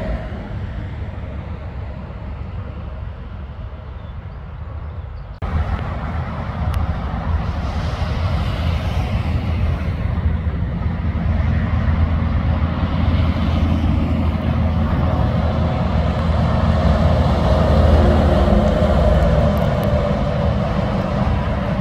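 Heavy diesel trucks passing on a highway, engine drone and tyre noise. The sound changes abruptly about five seconds in, then a Volvo semi-trailer truck approaches and passes, its engine hum growing loudest near the end.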